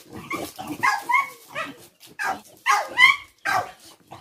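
Brindle puppy barking in a quick series of short, sharp barks, about two a second, loudest near the end: fearful alarm barking at a baby chick held out toward it.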